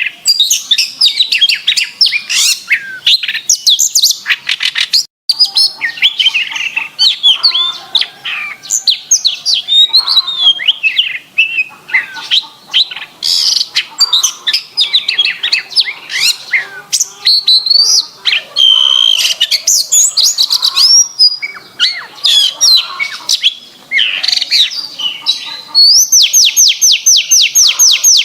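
Domestic canary singing a clear, continuous, varied song of quick whistled glides and chirps. Near the end it breaks into a fast, even trill.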